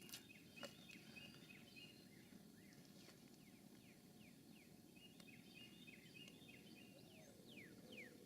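Faint outdoor ambience: a steady low background hiss with small birds chirping in quick runs of short high notes, and quick falling whistled notes near the end.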